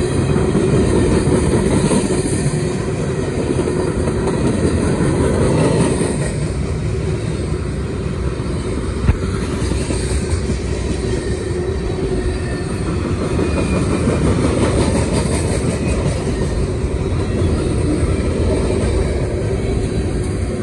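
Freight train tank cars rolling past close by: a loud, continuous sound of steel wheels running on the rails, with one sharp knock about nine seconds in. The last car goes by near the end.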